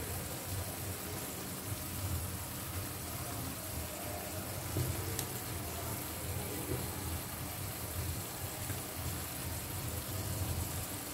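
Onion and poppy-seed paste (piyaj posto) sizzling softly and steadily in a steel kadai over a gas flame as its last water cooks off.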